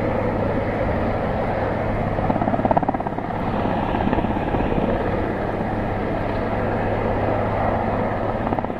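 Sikorsky CH-124 Sea King helicopter hovering, its five-blade main rotor beating steadily over the running of its twin turboshaft engines, with a steady low hum underneath. The rotor beat swells briefly a couple of seconds in.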